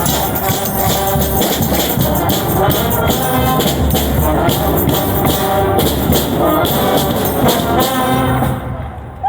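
Street brass band playing: horns over a steady drum and percussion beat, dying away near the end.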